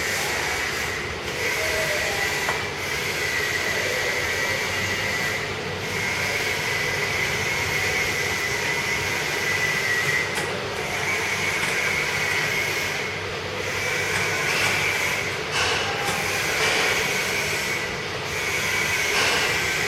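Cocoa powder grinding machine running steadily: an even mechanical rush with a constant high whine over it.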